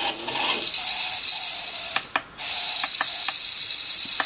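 A small brushed motor spinning a clear plastic reduction gearbox, giving a steady rattling gear whirr. It stops briefly about two seconds in, then runs again, with a few sharp clicks.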